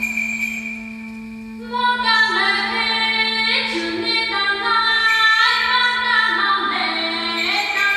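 A voice singing a wavering, gliding melody over a steady held drone note, heard in a large cave. The singing comes in loudly about two seconds in, after a quieter stretch where only the drone and a faint high note sound.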